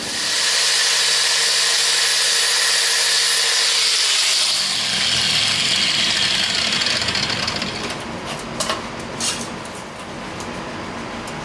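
Handheld electric power tool spinning up and running at full speed with a high hiss for about four seconds. It is then switched off and its pitch falls as it winds down over several seconds. A few short metallic knocks follow near the end.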